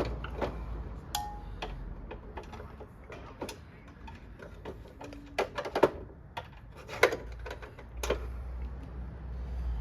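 Irregular metal clicks and knocks as a Honda C70 engine is worked into place and mounted in its frame. The sharpest knocks come about six and seven seconds in.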